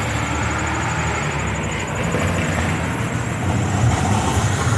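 Low rumble of a passing vehicle, swelling slightly toward the end.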